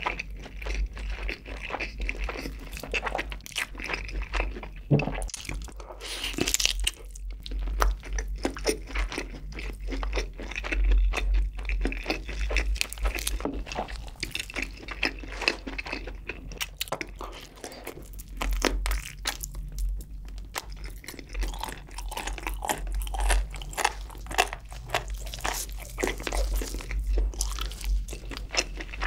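Close-miked chewing of a sauce-glazed grilled chicken drumstick, with wet smacks and irregular crunches from the mouth.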